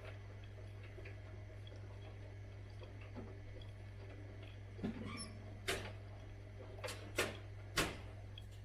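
Zanussi IZ 16 S washing machine in its rinse stage: a steady low hum with a few sharp knocks in the second half.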